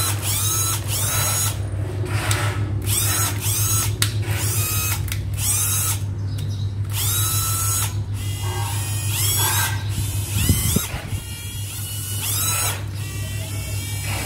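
Makita cordless drill with a large motor, test-run in short trigger pulls: the motor spins up with a rising whine and stops, a dozen or so times.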